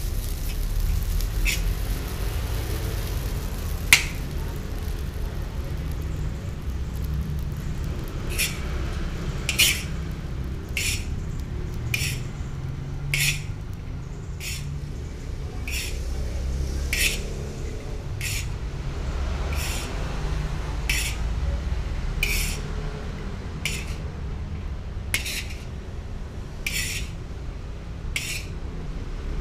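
A metal spoon scraping and scooping fried rice against a large steel wok: a sharp clink about four seconds in, then short scrapes about once a second starting about eight seconds in, over a steady low rumble.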